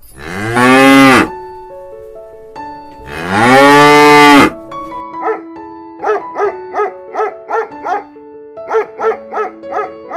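A cow mooing twice, each moo long and loud with a pitch that rises and falls. Then a run of short, quick calls about three a second from another animal, over background music.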